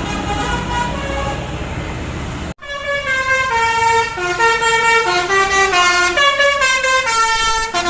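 Telolet basuri bus horn, five roof-mounted air-horn trumpets, playing a tune in held, stepped notes. A low rumble runs under the first part; about two and a half seconds in the sound cuts off abruptly, then the horn tune carries on without the rumble.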